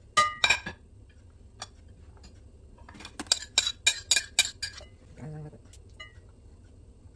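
Metal spoon clinking against ceramic dishes while chopped raw fish and onion are stirred and scooped. There are a few clinks right at the start, then a quick run of about eight clinks around three to five seconds in.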